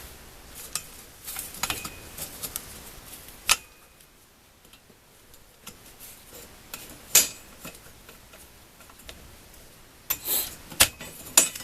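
Scattered small metallic clicks and clinks, with a few sharper knocks, as a drink holder is worked off an old mountain bike's frame.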